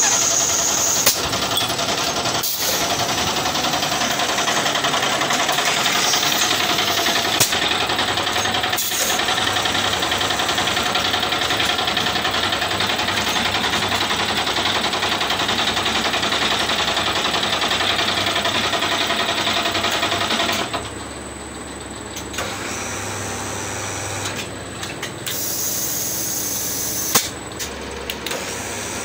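Small plastic bottle-making machinery running: an extruder and blow-moulding press give a steady, dense mechanical clatter with a few sharp clicks. About two-thirds of the way through the noise drops suddenly to a quieter hum with scattered clicks and knocks.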